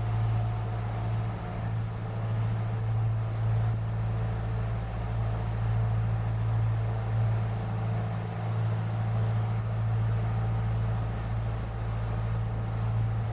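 Leopard 45 catamaran's twin inboard diesel engines running steadily under way, a low, even drone with a constant hum.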